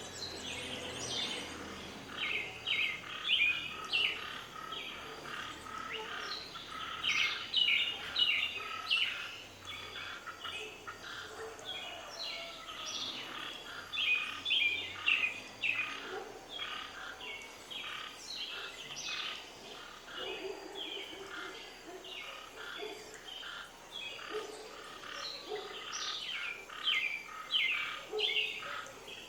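Birds chirping and calling, many short overlapping chirps in quick succession.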